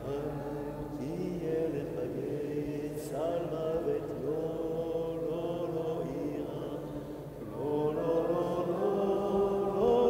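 Chanted vocal music: long held notes that slide up between pitches over a sustained drone, swelling louder near the end.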